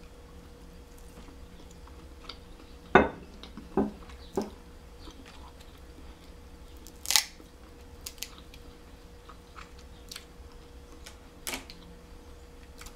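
Snow crab leg shells cracking and snapping by hand: several sharp cracks a few seconds apart, the loudest about three and seven seconds in, with quiet chewing between them.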